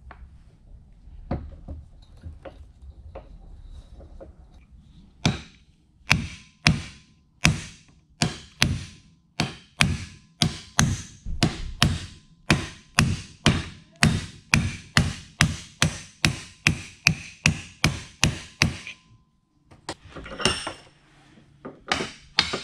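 Hammer blows on the yoke and bearing caps of a driveshaft universal joint: a few light taps at first, then a long regular run of hard metal strikes about two a second, stopping about nineteen seconds in, with a few more blows near the end.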